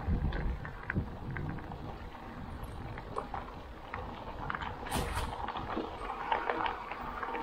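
Electric mountain bike riding over a rough trail: irregular knocks and rattles from the bike over stones and roots, with wind rumbling on the action camera's microphone. A brief hissing rush comes about five seconds in.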